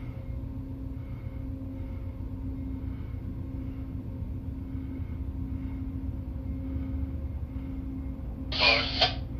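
Low, steady rumble of an Amtrak passenger train led by a GE Genesis diesel locomotive, rolling slowly into the station, heard through a window along with a steady hum. A short burst of hiss comes about eight and a half seconds in and is the loudest sound.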